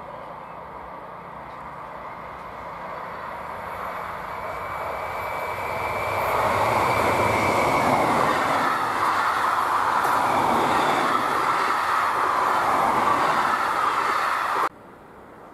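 A train approaching and passing on the rails, growing louder over about six seconds into a steady loud rumble of wheels and running gear, with a thin high whine for a few seconds in the middle. The sound cuts off suddenly about a second before the end.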